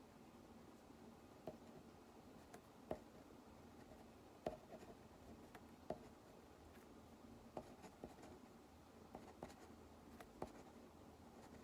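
Faint, irregular taps and clicks of someone working at a desk, about one every second, over quiet room tone.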